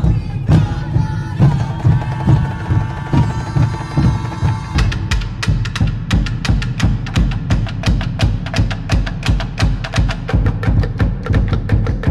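Soundtrack music with drumming. A held high tone sounds over the drum for the first few seconds, then gives way to a fast, even beat of sharp strokes.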